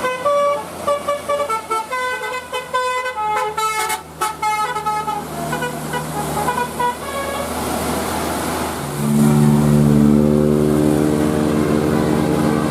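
Indonesian bus telolet horn (Basuri-type musical horn) playing a quick melody of short notes at different pitches for about seven seconds. About nine seconds in, a louder, lower, steady horn note starts.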